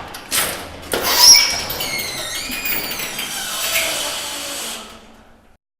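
Garage door moving on its track: a couple of clunks at the start, then metallic rolling and scraping with high, wavering squeals for about four seconds before it dies away.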